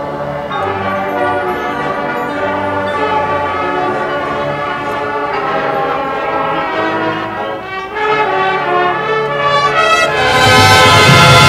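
High school marching band playing, its brass holding sustained chords that shift every second or two. Near the end it builds to a louder, fuller full-band passage.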